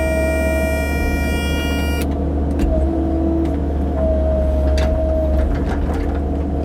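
CAT 308 mini excavator's diesel engine running steadily under load, with a hydraulic whine that drops out and comes back as the controls are worked. A few short knocks, like rock striking the bucket.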